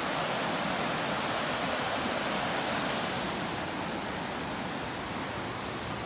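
Stream water rushing steadily over a small rocky cascade, growing a little softer after about four seconds.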